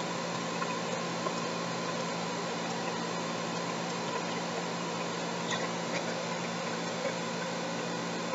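Steady room tone: an even hiss with a low electrical hum and a few faint small ticks.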